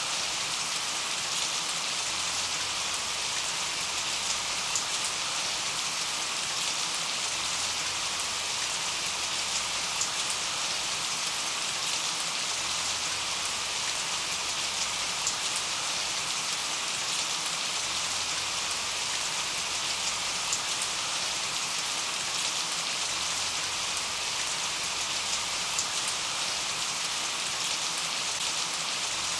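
Steady rain falling and pattering on a surface, an even hiss with scattered individual drop ticks.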